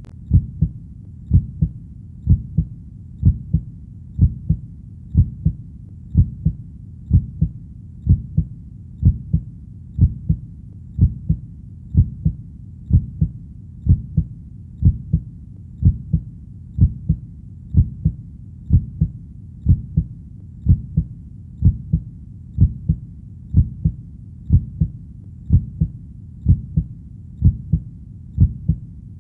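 Heartbeat sound: a steady lub-dub, each beat a pair of low thumps, at about one beat a second, with a faint low rumble between beats.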